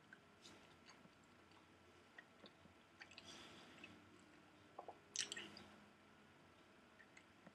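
Near silence: room tone with a faint steady high hum and a few scattered small clicks and rustles, a short cluster of them about five seconds in.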